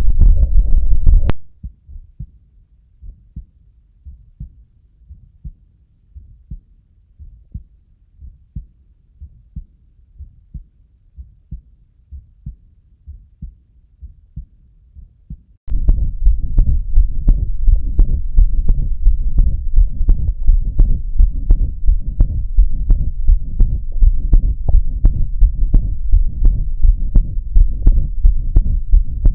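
Heart sounds picked up through the Stethophone smartphone stethoscope: a regular run of low heartbeats with a murmur between beats, diastolic murmurs as played in an auscultation lesson. The recording switches twice, going much quieter about a second in and loud again about halfway through.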